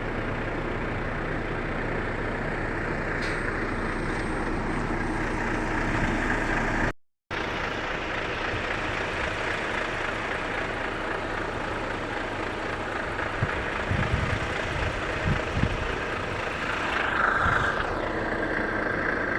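Heavy truck running steadily with road noise, with a few low thumps in the second half. The sound drops out completely for a moment about seven seconds in.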